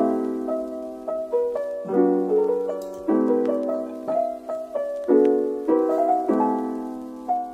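Background piano music: notes and chords struck about once a second, each left to ring and fade.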